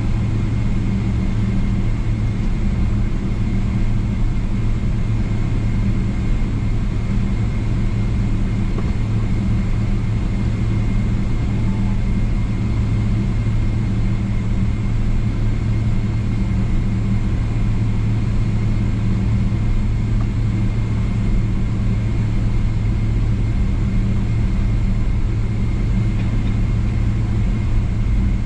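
Steady low rumble inside the cabin of a Boeing 777-300ER taxiing, its GE90-115B turbofans running with a faint steady high whine over the rumble.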